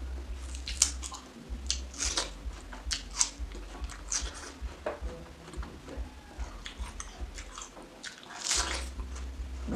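Bites into fresh watermelon slices, crisp wet crunches at irregular intervals with chewing in between.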